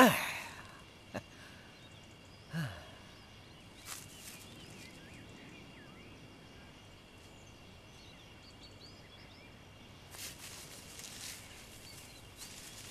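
Quiet woodland ambience with small birds chirping and a steady high tone, as a man lets out a long voiced sigh at the start and a shorter one a few seconds in. Around ten seconds in, grass and leaves rustle as he moves.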